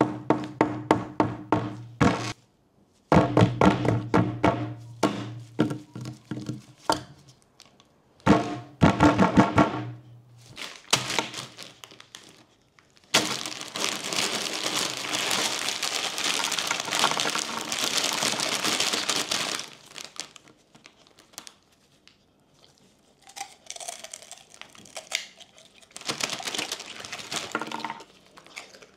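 Short phrases of music for about the first ten seconds. Then a clear plastic bag of pork rinds crinkles steadily for about six seconds as gloved hands work it open. More crinkling comes in short spells near the end.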